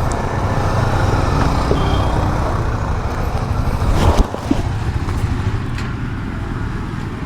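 Motorcycle engine running amid street traffic, with a single sharp knock about four seconds in.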